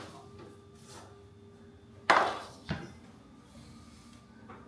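A metal sheet pan set down on a wooden butcher-block cutting board: one sharp knock about two seconds in, then a lighter knock just after, over a faint steady hum.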